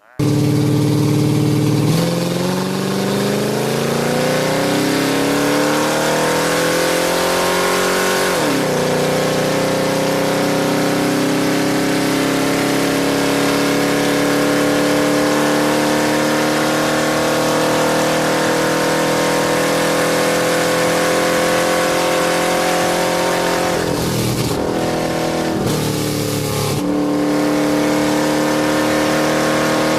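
Off-road race truck engine running hard under load. Its pitch climbs for several seconds and falls sharply on a gear change about eight seconds in, then holds high and steady, with two brief dips near the end as the throttle comes off and goes back on.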